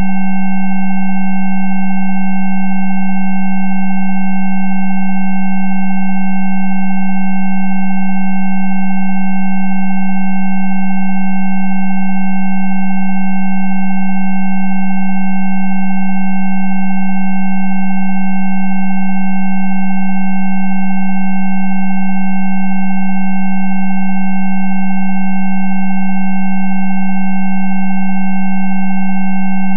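Electronically generated Rife frequency tones: several steady pure tones sounding together and held without change, the loudest a low tone with fainter, higher tones above it.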